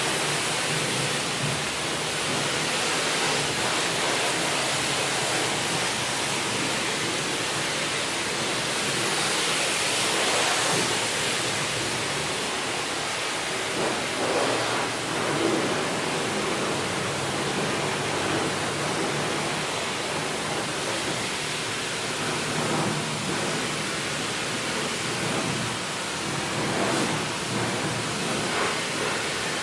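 High-pressure wand at a self-service car wash spraying water onto a car: a steady hiss of spray and water drumming on the bodywork, swelling and easing as the spray moves, loudest about ten seconds in.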